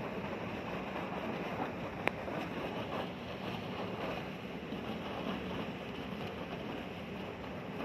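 Steady low rumble of a ship's engine with wind buffeting the microphone, and a single sharp click about two seconds in.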